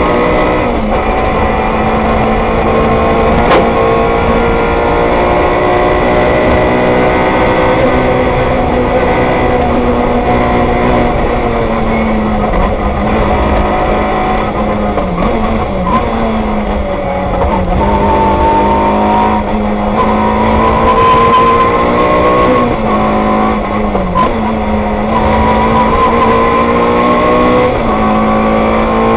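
Peugeot 106 rally car engine heard from inside the cockpit at stage speed, revs climbing and falling as it is driven hard. Its pitch drops sharply several times in the second half, at the gear changes.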